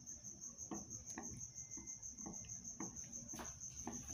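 Wooden spoon stirring liquid in a plastic bowl, knocking against the bowl about twice a second. A steady high-pitched pulsing trill runs underneath.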